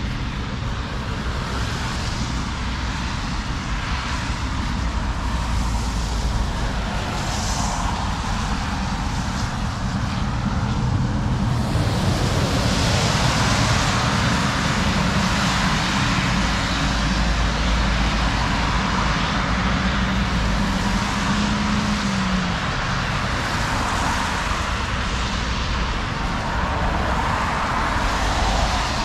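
Road traffic going past: a steady hiss of tyres and engines that swells louder through the middle as vehicles pass close by.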